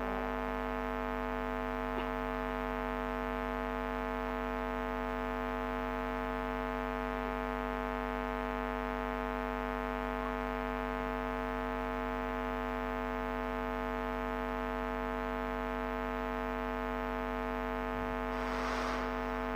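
Sound-system hum: a steady, unchanging electrical drone with a low mains hum beneath it, coming through the PA in a pause in the recitation.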